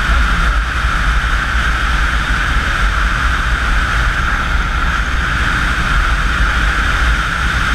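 Motorcycle cruising steadily at highway speed: a constant low rumble of wind on the microphone mixed with the engine's drone, unchanging throughout.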